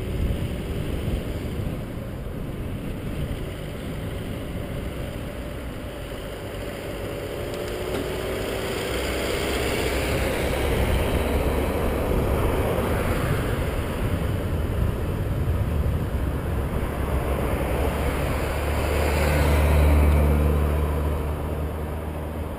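Wind rushing over a camera mounted on a moving bicycle, with road traffic on a multi-lane highway passing close by. The rumble swells from about halfway through and is loudest near the end as vehicles go past.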